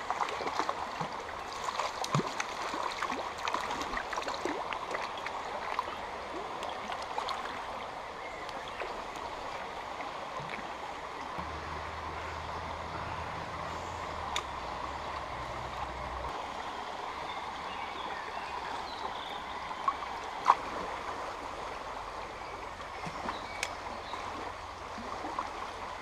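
Small, fast forest river rushing steadily over its riffles, with a few short sharp clicks.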